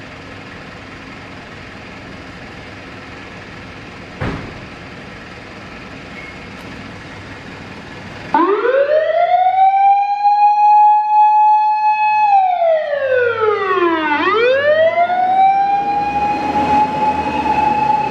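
Japanese fire engine's wailing siren: it winds up about eight seconds in, holds a steady pitch, slides down and winds up again. Before it, a steady engine rumble with a single thump about four seconds in.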